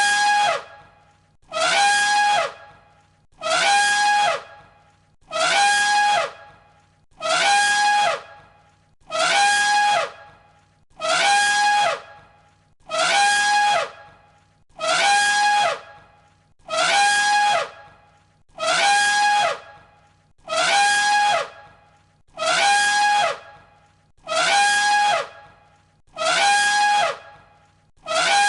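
An elephant trumpeting: the same short trumpet call repeated evenly about every two seconds, as a loop.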